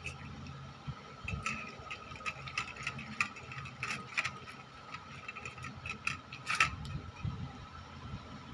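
Irregular light clicks and knocks of objects being handled, over a faint steady high tone.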